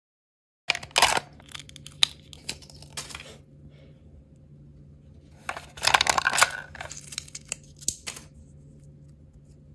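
Thin printed plastic wrapper being torn and peeled off a miniature toy, with crackly crinkling. It comes in two spells, starting about a second in and again, louder, around the middle.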